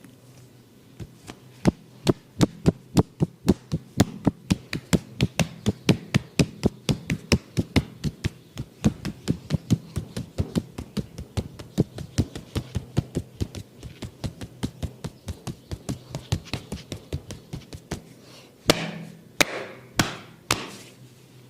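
Hands striking the client in a percussive massage. They beat a fast, even rhythm of about three to four slaps a second, then give a few louder, more widely spaced slaps near the end.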